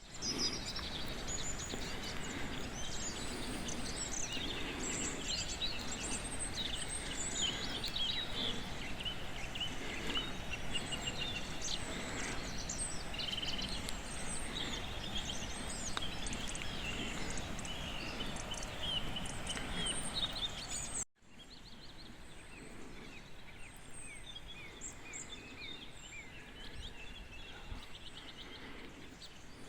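Several birds singing and chirping at once, a dense chorus of short calls and trills over a steady outdoor background hiss. About two-thirds of the way through it cuts off abruptly and resumes a little quieter, with fewer calls.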